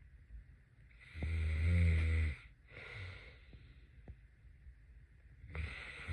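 A sleeper snoring: a loud, low, rattling snore on the in-breath about a second in, a softer breath out, then another loud snore starting near the end.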